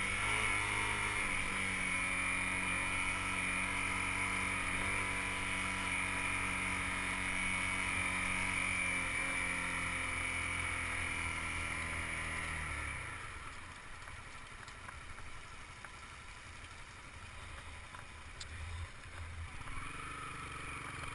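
Honda CBR250R single-cylinder engine running at a steady cruise under wind rush. About two-thirds of the way through, the engine note drops away as the bike slows, leaving quieter wind and road noise, and it picks up slightly near the end.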